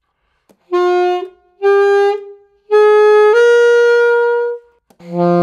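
Alto saxophone played with an over-tight, biting embouchure: three short attempts at low notes, each cracking up to a higher pitch instead of holding, the sign of too much tension in the embouchure. Near the end a fuller, lower note begins.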